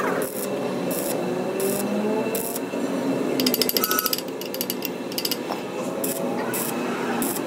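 Stick welding arc on a steel truck trunnion shaft, crackling and sputtering in irregular bursts, with a dense rapid run of crackles about three and a half seconds in and again near the end.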